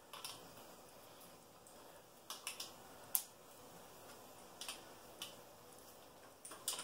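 Scattered light metallic clicks and clinks of small hardware, a nut and a metal rod, being fitted by hand against a galvanized sheet-metal box, the sharpest click a little after three seconds in.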